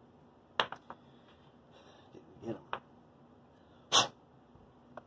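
Light clicks and taps of small hobby tools, such as tweezers, being handled and set down on a workbench, with a brief scrape, and one louder short sharp noise about four seconds in.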